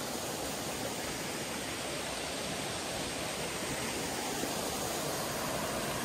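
Steady rush of stream water pouring over rocks in small cascades, an even, unbroken noise.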